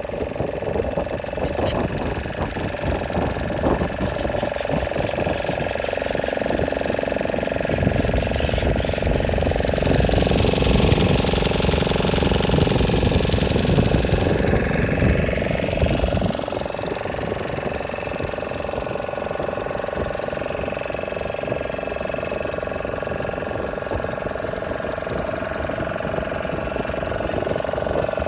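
Boat engine running steadily, with a louder low rumble for several seconds in the middle.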